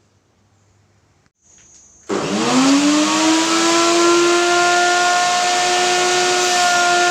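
Electric wood router switched on about two seconds in, its motor spinning up with a quickly rising whine, then running steadily at full speed.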